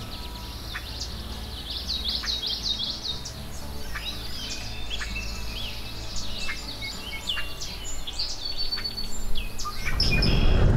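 Many birds chirping and singing in quick, short calls over a low steady hum. About ten seconds in, a louder steady rushing noise takes over.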